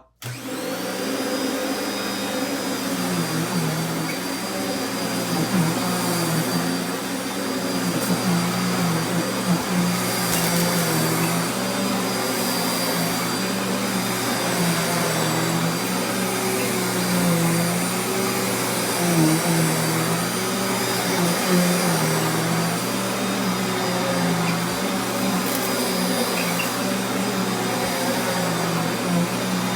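Sharp Twin Energy 9-amp upright vacuum cleaner switched on and running steadily, its motor giving a high whine over a low hum that wavers up and down at a regular pace.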